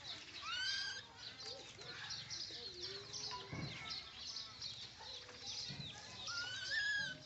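A steady run of short, high chirps throughout, with two longer, rising-and-falling squeals, about half a second in and again near the end, from baby monkeys calling inside an upturned bamboo basket. Now and then there is a dull knock as the basket shifts on the concrete.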